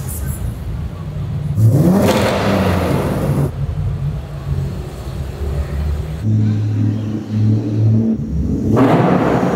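Car engines revving as cars drive past in an underground parking garage. There is a loud rev that rises in pitch about two seconds in, a steadier engine drone in the middle, and another loud burst near the end.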